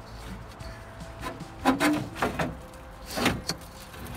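Toyota MR2 Roadster radiator being worked loose and lifted out of its rubber mounts: a handful of short scrapes and knocks.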